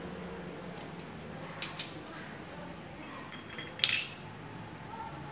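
Small metal dental handpiece parts clinking: two light clicks, then a sharper metallic clink with a brief high ring about four seconds in.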